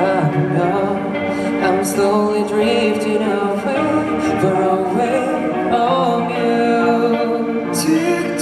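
A rock band playing live, with a male singer's voice over the band and occasional cymbal crashes.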